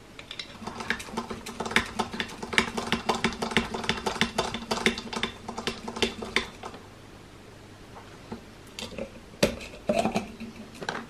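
Small hand grease gun being fitted and worked against a bearing block of a 6040 CNC engraver, forcing grease in without a grease nipple. A rapid run of small metallic clicks and clinks lasts about six seconds, with a steady low hum under it. A few scattered knocks follow near the end.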